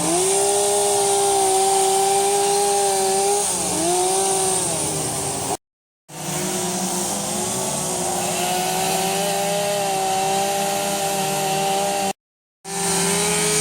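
Chainsaw running at high speed while carving redwood, its pitch dipping briefly as it bites into the wood about three and a half seconds in. The sound cuts off abruptly to silence twice and starts again.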